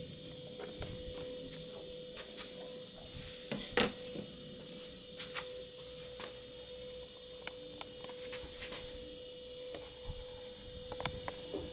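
A faint steady electronic hum with hiss, under scattered small clicks and taps from handling a radio-control transmitter, with one sharper knock about four seconds in.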